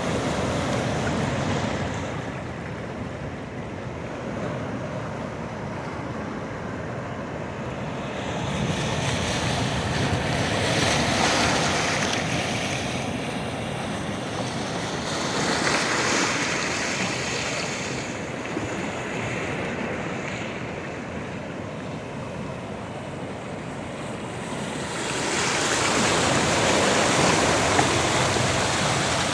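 Sea surf: a continuous rush of waves washing on the shore, swelling louder several times as larger waves break.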